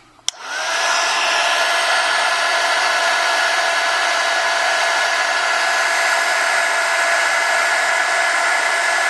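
Handheld hot-air blower switched on with a click, then running steadily with a rush of air and a constant whine, blowing heat onto the phone's front assembly to soften adhesive.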